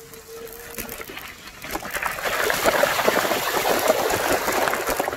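Bicycle tyres rolling through wet mud and puddles, a gritty splashing and spattering that swells loud about two seconds in.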